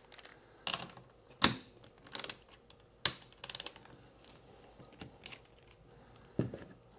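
A 17 mm socket clicks onto a ratchet wrench, then the wrench works a nut off a steel stud on a Victron Lynx Distributor busbar, with sharp metal clicks and a quick run of ratchet clicks about halfway through. A dull knock near the end as the wrench is set down.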